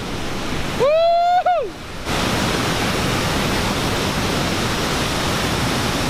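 Large waterfall on the White Drin river: heavy white water pouring over rock with a steady rushing noise, fuller and louder from about two seconds in.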